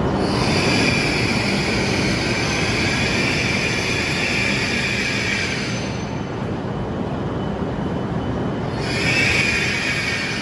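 E7 series Shinkansen train rolling slowly alongside the platform, a steady rumble with a high hiss over it. The hiss fades out about six seconds in and comes back near the end.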